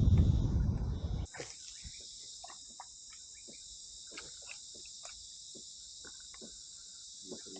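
Loud low rumbling noise that cuts off suddenly about a second in, followed by insects chirring steadily in a high band, with faint scattered clicks.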